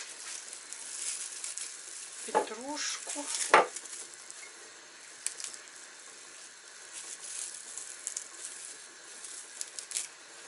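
Rustling and crackling of herbs and a thin plastic herb container being handled while fresh basil is packed into a glass jar, with many small clicks. A couple of brief squeaks and a sharp knock come about two and a half to three and a half seconds in.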